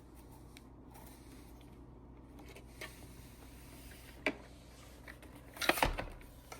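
Quiet room tone with a few light plastic clicks and knocks from hands handling a robot vacuum. There is one sharp click about two thirds in and a short cluster of louder knocks near the end.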